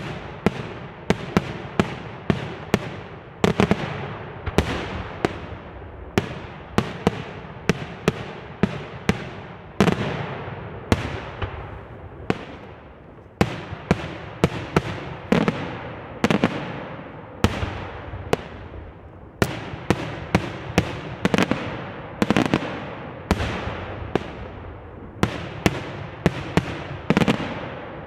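Aerial fireworks display: a continuous barrage of shell bursts going off one after another, about one to three bangs a second, each followed by a long echoing rumble.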